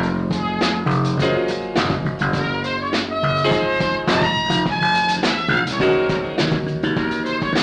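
Instrumental background music with a drum kit keeping a steady beat under pitched instruments.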